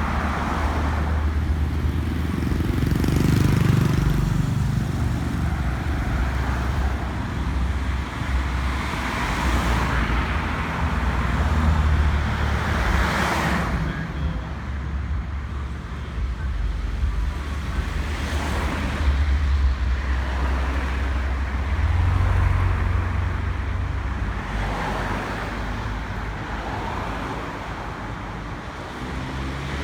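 Road traffic: a steady low engine rumble with vehicles swelling past every few seconds.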